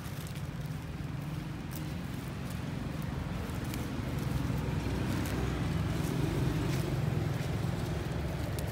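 Low, steady rumble of a vehicle engine that grows louder a few seconds in and eases off near the end, with a few light clicks on top.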